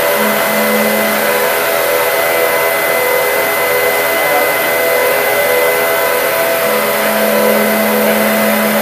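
Matsuura MC-600V vertical machining center running, its table traversing under power: a steady mechanical hum and hiss with several constant whining tones. A lower hum comes in just after the start for about a second and again for the last two seconds or so.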